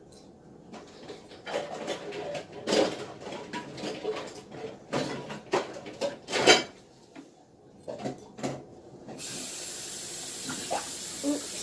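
Water poured and splashing into a bowl in uneven gushes and clatters, then a steady hiss that starts suddenly near the end.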